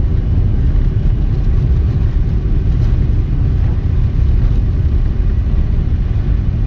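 Steady low rumble of a car driving on a snow-covered road, heard inside the cabin: tyre and road noise with the engine running.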